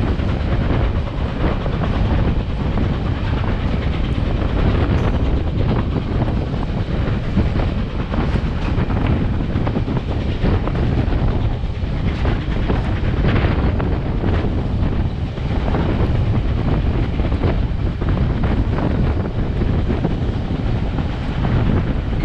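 Railroad passenger car rolling along the track: a steady low rumble of steel wheels on rail, with irregular clicks and clacks over rail joints.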